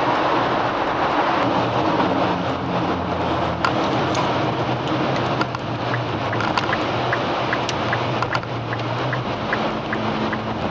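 Car driving along: steady road and engine noise with a low hum.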